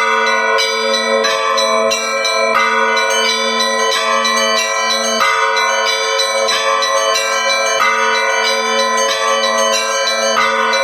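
Orthodox church bells ringing a full peal: small bells struck rapidly, several strikes a second, over the steady ring of a larger, deeper bell.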